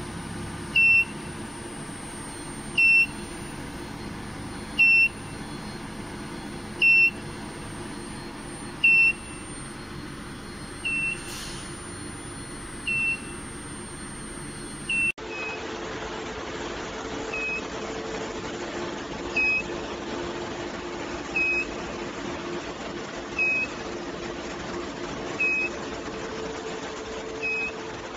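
Electronic beeper on an induction heating machine giving a short, high, single-pitched beep about every two seconds, over a steady machine hum and hiss. The background shifts abruptly about halfway through, while the beeping keeps the same pace.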